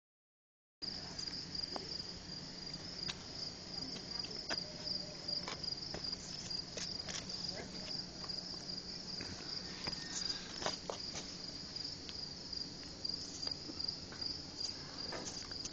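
Crickets chirping in a steady, high-pitched chorus, with scattered faint clicks.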